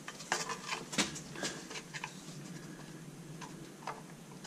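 Sharp clicks and metal taps of an Allen wrench working small screws out of a sheet-metal shield, several quick ones in the first two seconds and a few scattered ones later.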